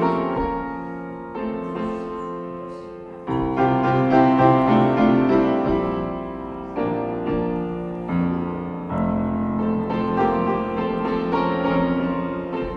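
Piano playing slow, sustained chords that change every second or two, played as a sound-check signal for setting the piano channel's level.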